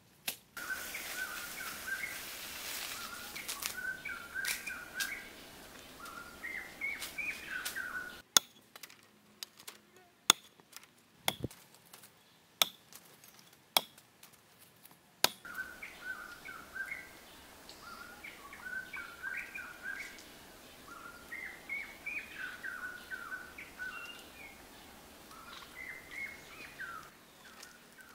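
Small birds chirping over a faint hiss of surroundings. Through the middle comes a series of sharp, separate machete chops on a wooden log, cutting green stems.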